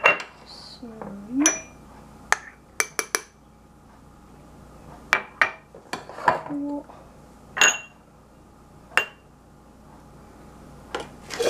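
Small glass jars clinking against a spoon and against the tiled counter as chocolate mousse is spooned into them: about a dozen sharp, ringing clinks at uneven intervals.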